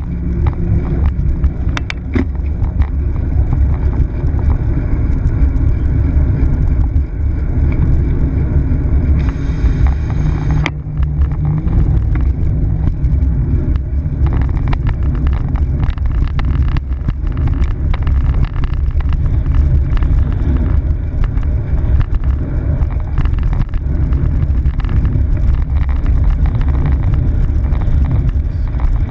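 Wind rushing over the microphone of a bicycle-mounted camera while riding, a loud steady low rumble, with frequent small clicks and rattles as the bike rolls over the pavement.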